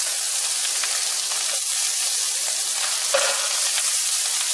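Shredded chicken, red onion and garlic sizzling in hot oil in a non-stick frying pan, a steady high hiss. A spatula stirs them, with faint scrapes and one louder stroke against the pan about three seconds in.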